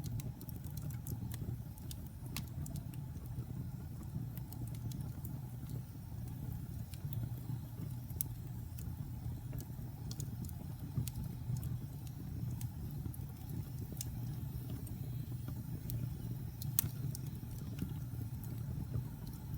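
Wood fire burning in a fireplace: a steady low rumble of flames with irregular sharp crackles and pops from the logs, a few louder snaps now and then.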